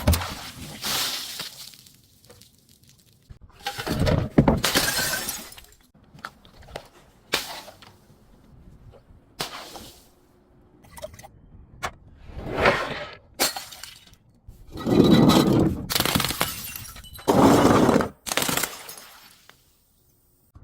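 Glass bottles breaking and shattering in a string of crunching breaks, about eight separate ones with short quiet gaps between.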